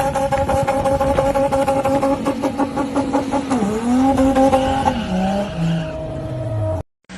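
An off-road vehicle's engine running hard, with rough crackling noise over the engine note. About three and a half seconds in the revs dip and pick up again, then fall away in steps before the sound cuts off abruptly near the end.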